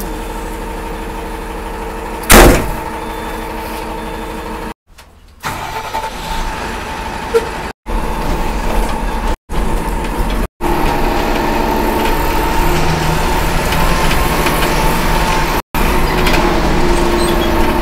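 MSRTC bus engine and road noise running steadily, with a faint steady whine over the hum. There is a loud thump about two seconds in, and the sound breaks off abruptly several times.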